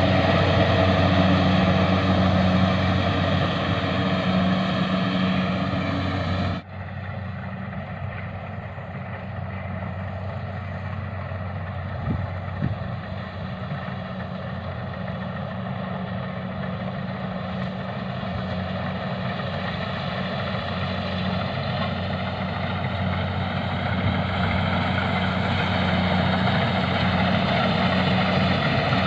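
Harvesting machine's engine running steadily, with a steady pitch. It drops suddenly in loudness and brightness about a third of the way in, then slowly grows louder again.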